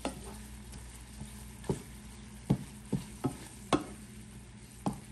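Wooden spatula stirring vegetables in a cream sauce in a skillet, with about seven irregular scrapes and knocks against the pan. A faint steady sizzle of the simmering sauce runs beneath.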